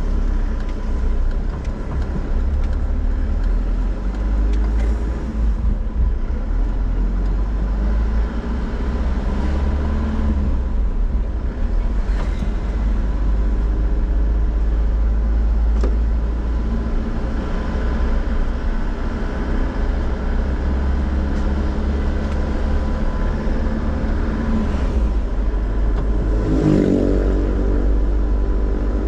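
Car being driven, heard from inside behind the windshield: a steady low rumble of road and engine noise with a faint hum, and a louder engine note briefly near the end.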